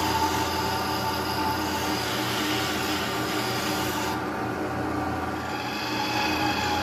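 Lathe running with a wooden dowel spinning in its chuck while a hand rubs along it: a steady rubbing hiss over the motor's hum. The rubbing stops about four seconds in and the motor runs on.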